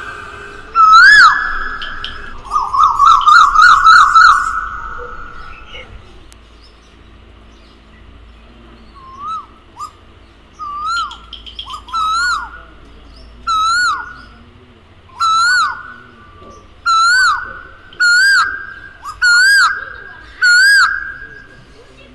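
Asian koel calling. A loud upswept note comes about a second in, followed by a quick run of notes. Then a series of about a dozen rising-and-falling calls follows, roughly one a second and more, growing louder toward the end.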